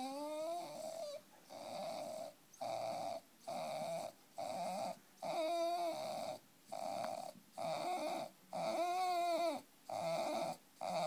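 A dog making a run of short sneeze-like snorts on cue, about ten in a row, each lasting under a second. Several carry a wavering pitch.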